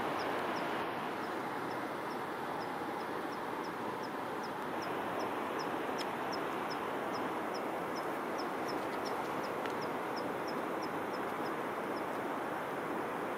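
Steady rushing noise, with a short, high chirp repeated evenly about two to three times a second that stops shortly before the end.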